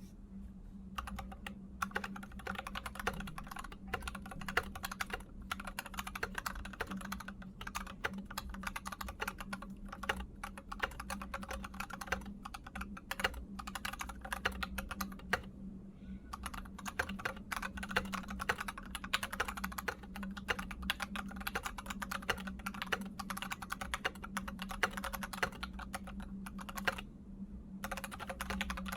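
Fast, continuous typing on a NovelKeys NK65 v2 aluminum-case mechanical keyboard with lubed and filmed FFF switches and PBT keycaps, broken by brief pauses about a second in, around the middle and near the end. A steady low hum runs underneath.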